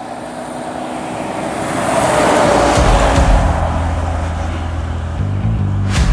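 A truck passing by on the road: tyre and engine noise builds to a peak about two and a half seconds in, with a falling whine as it goes past. A steady low bass comes in about three seconds in.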